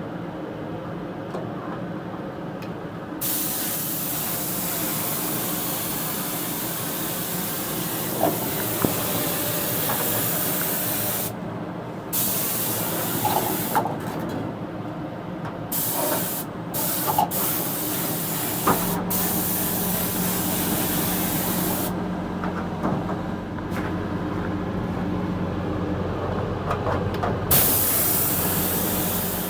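Spray gun spraying thinned lacquer in a series of hissing bursts of a few seconds each, with short pauses between them; a steady low motor hum starts about two-thirds of the way through.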